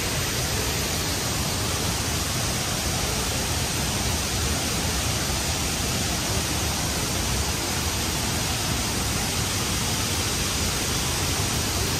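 A large waterfall pouring into its pool: a steady, even rush of falling water with no let-up.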